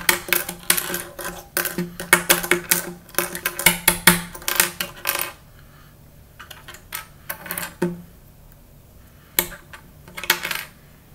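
Small plastic Lego pieces clicking and clattering as they are set down and pushed around on a hard tabletop. There is a quick run of clicks for about five seconds, then a few scattered clusters of clicks.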